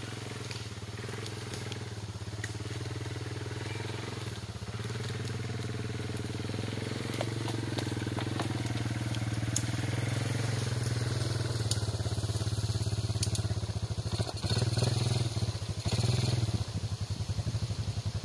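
Yamaha Moto-4 ATV engine running as the quad drives along a forest trail towing a log trailer, growing gradually louder as it comes closer. Scattered sharp clicks and crackles sound over the engine.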